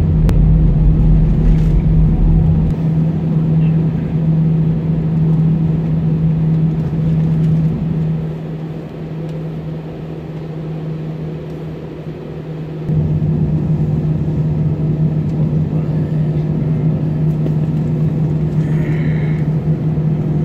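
Steady cabin drone of a jet airliner taxiing: engine hum and rush with a strong low steady tone. The drone drops quieter for a few seconds about eight seconds in, then jumps back up suddenly about thirteen seconds in.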